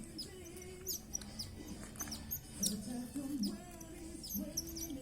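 Newly hatched parrot chicks peeping during hand-feeding: many short, high chirps that sweep downward, over a softer, lower wavering tone.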